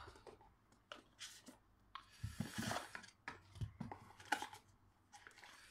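Light rustling, scrapes and a few small clicks from a cardboard box being handled and its lid opened.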